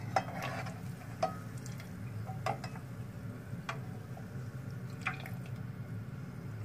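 Metal slotted skimmer clinking against a saucepan of frying oil about five times, a second or so apart, over a steady low hum.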